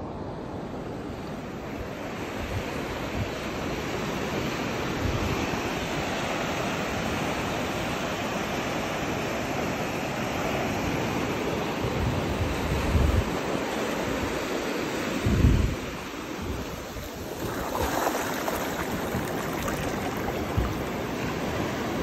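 Small surf breaking and washing up over wet sand, a steady rushing wash; toward the end one wash surges louder and hissier. A few low buffets of wind hit the microphone.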